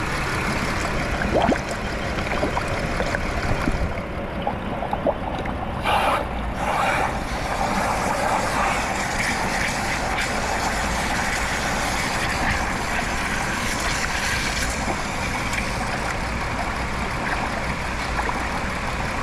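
Water from a garden hose nozzle rushing and churning into a coolant funnel on the radiator, over a Chrysler 3.6 Pentastar V6 running rough with a heavy misfire. The misfire follows severe overheating from a blown heater core hose, which the mechanic fears has damaged the head gasket or cylinder head.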